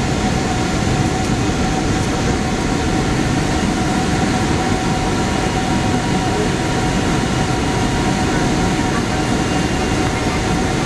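Steady cabin noise inside a Boeing 767 on descent: the rush of its Rolls-Royce RB211 jet engines and airflow over the fuselage, with a faint steady whine.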